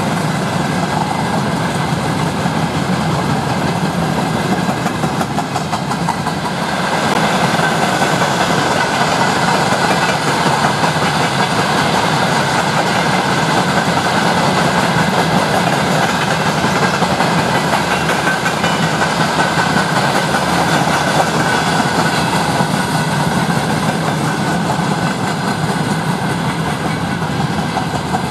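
Freight train of covered hopper wagons rolling past, a steady rumble and rattle of wheels on the rails that grows a little louder about seven seconds in.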